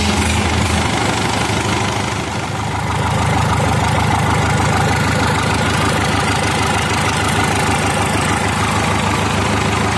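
Ajax Simpson diesel engine, freshly started on a test stand, idling steadily with an even pulsing beat; it picks up a little in level about three seconds in.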